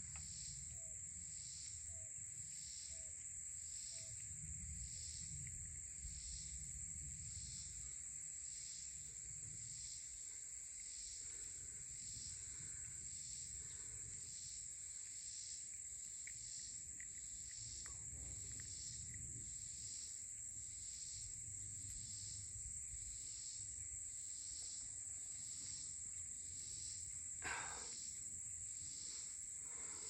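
Insects calling steadily: a continuous high buzz with a softer pulse repeating about once a second. A short rustle about a second before the end.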